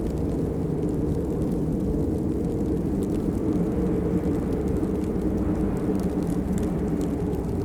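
Steady rain: a dense, even, low-pitched wash of noise with faint scattered drop taps over it.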